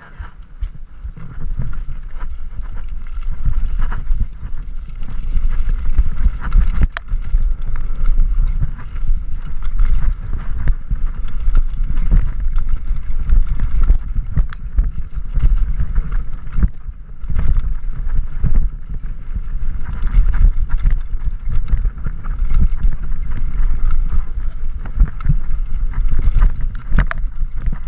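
Wind rumbling on a rider-mounted camera's microphone during a mountain-bike descent of a dirt trail, with tyre noise and the rattle and knock of the bike over bumps. It builds over the first couple of seconds as the bike picks up speed.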